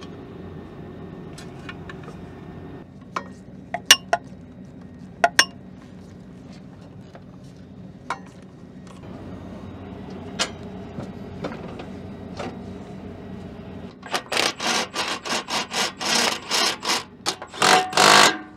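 Scattered light metal clicks and clinks of parts being handled over a steady low hum, then near the end a Milwaukee cordless stubby impact wrench driven in a quick series of short bursts, about four a second, tightening a hose clamp on the intake tube.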